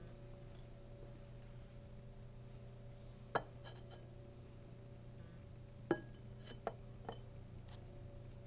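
A large glass beaker being lowered over a burning tea candle and set down on the benchtop: four sharp glass clinks and knocks, the loudest about three and a half and six seconds in. A steady low hum runs underneath.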